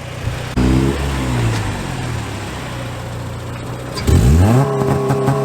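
Acura Integra's four-cylinder VTEC engine through its aftermarket header and exhaust. It comes in suddenly about half a second in and settles toward idle, then near four seconds it revs up fast and holds at a steady high rpm, staged on the two-step launch limiter just before a launch.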